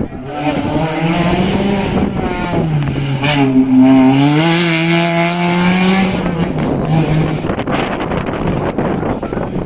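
Single-seater formula race car engine at speed: the revs drop over a couple of seconds as the car slows for a corner, then climb again as it accelerates away. In the last few seconds the engine note turns rougher and noisier.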